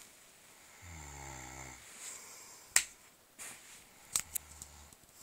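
A sleeping man snoring: one low snore about a second in and a fainter one near the end. Several sharp clicks fall in between, the loudest a little under three seconds in.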